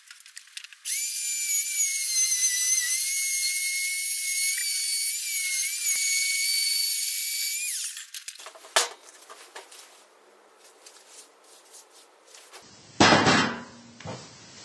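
Electric angle grinder running with a high whine, its pitch dipping now and then under load as it cuts into a steel car brake disc. About eight seconds in it is switched off and winds down. Near the end there is one loud metallic clank as the cut ring of the disc comes loose.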